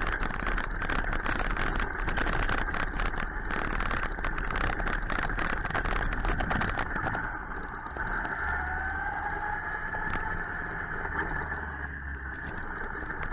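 Suzuki GSX-R 1000 inline-four motorcycle under way, heard over wind noise on the rider's microphone. There is dense crackling over the first half. In the second half the engine note rises and falls gently.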